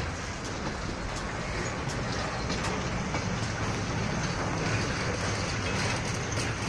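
Wind blowing across a phone's microphone: a steady rushing noise with an uneven low rumble.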